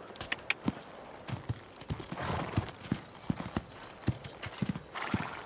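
Horses walking, their hooves clip-clopping in an uneven run of knocks, several a second.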